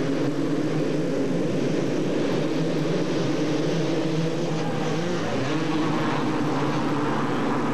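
A pack of 250cc two-stroke motocross bikes racing off the start together, their engines merging into one loud, steady din at high revs.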